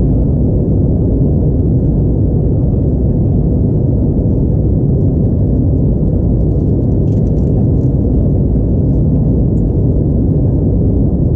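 Steady low rumble of engine and airflow noise inside an Airbus A321neo's cabin, heard from a window seat over the wing as the jet climbs out.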